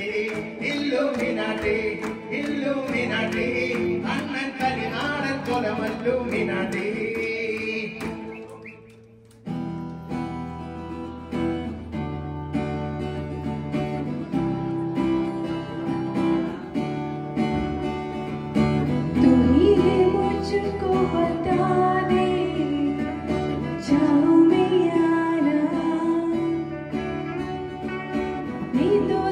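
Live acoustic guitars accompanying a small group singing in unison. About eight seconds in the song dies away, and about a second later the next song of the medley starts.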